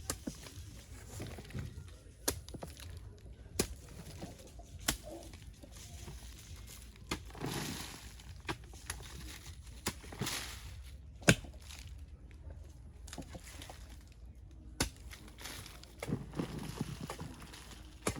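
Digging tool chopping into soil: sharp strikes every second or two, the loudest a little past the middle, with two longer scraping rushes of loosened soil being shifted.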